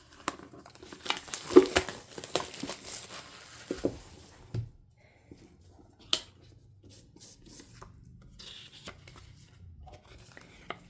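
Album packaging being torn open and crinkled by hand. A dense run of crackling fills the first four seconds, followed by quieter handling with scattered clicks, one sharper click about six seconds in.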